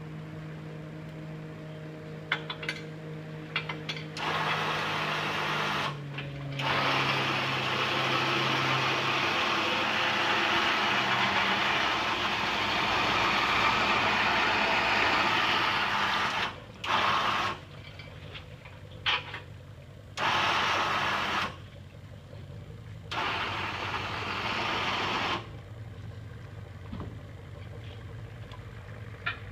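Motor of a boat trailer's powered tilt rack, run in one long stretch and then in several short on-off bursts as the rack lowers an inflatable rescue boat. A vehicle engine idles steadily underneath.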